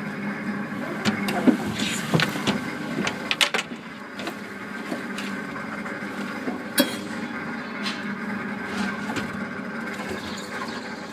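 Amusement ride car running along its elevated rail track with a steady mechanical hum, with a run of clicks and clunks from the wheels and track in the first few seconds and one more sharp knock about seven seconds in.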